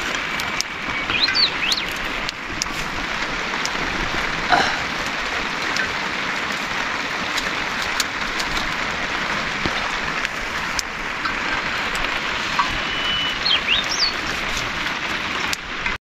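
Steady rain falling, with scattered drops ticking close by. A bird chirps briefly a couple of times.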